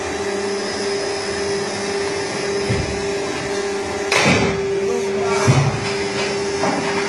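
Double-side auto-feeding box cutting machine running, a steady whir with a constant tone. About four seconds in comes a loud rushing burst, and a short low thud follows about a second and a half later.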